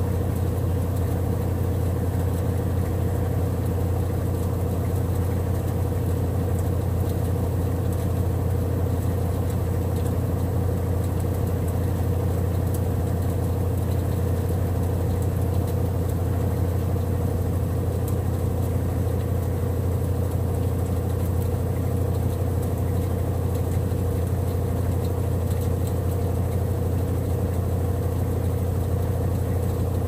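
Consul Maxi Economia 13 kg (CWE13) top-loading washing machine running with a steady, even hum and no agitation strokes, as in its drain-and-spin stage before the first rinse.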